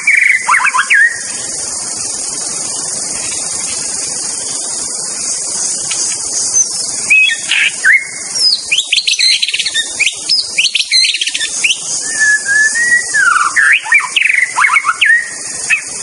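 White-rumped shama (murai batu) singing: loud, varied whistled phrases with quick rising and falling slurs and rapid clusters of notes. It comes in bursts at the start, through the middle and near the end, over a steady high hiss.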